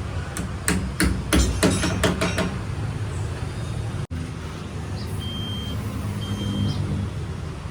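Wheel balancing work: a quick run of about eight sharp hammer-like knocks, then the balancing machine's steady hum with two short high beeps.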